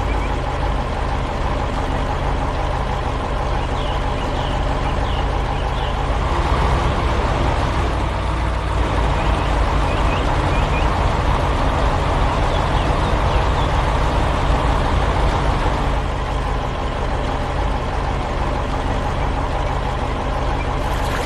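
Heavy diesel engine of a construction vehicle running steadily, growing louder about six seconds in as if working under load, then easing back around sixteen seconds, and cutting off suddenly at the end.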